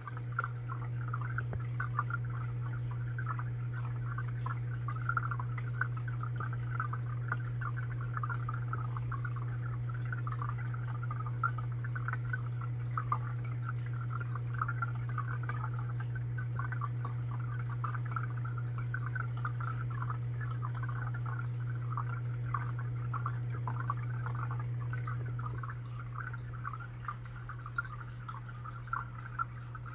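Aquarium water trickling and bubbling steadily over a steady low hum, both dropping slightly about 25 seconds in.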